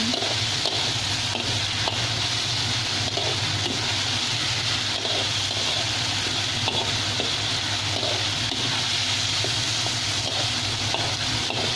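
Long beans sizzling in a wok in a shallow pool of water and chilli paste, a steady watery hiss as the liquid cooks off, with light scrapes and taps of a metal spatula stirring against the wok.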